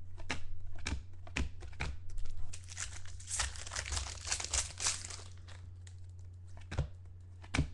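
Foil trading-card pack wrapper being torn open and crinkled by hand, densest in the middle, with scattered sharp clicks from handling the cards, over a steady low hum.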